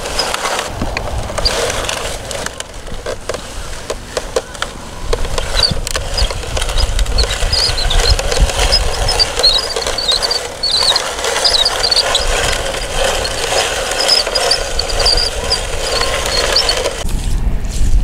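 Plastic crawler tracks and blade of a toy Caterpillar bulldozer grinding and scraping through wet sand as it is pushed by hand, with small high squeaks through the middle and wind rumbling on the microphone. The sound cuts off abruptly about a second before the end.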